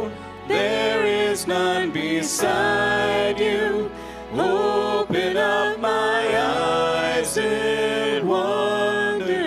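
Contemporary worship music: a sung melody with vibrato over band accompaniment, with a steady low bass underneath.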